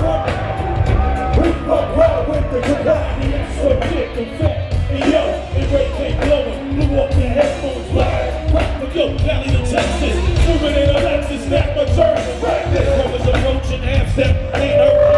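Live hip-hop performance over a big concert sound system: a heavy bass beat with rapped vocals over it, heard from the audience.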